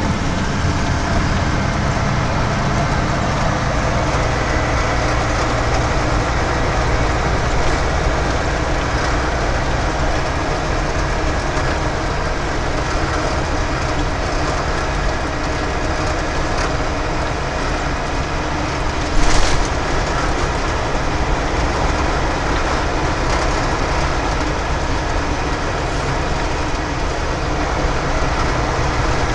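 Steady engine drone and road noise inside a semi-truck cab at highway speed. A single short knock sounds once, about two-thirds of the way through.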